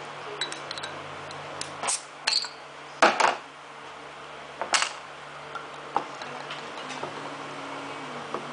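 Sharp clicks and knocks of a glass drink bottle being handled, the loudest about three seconds and nearly five seconds in. Near the end the drink is poured from the bottle over ice into a glass.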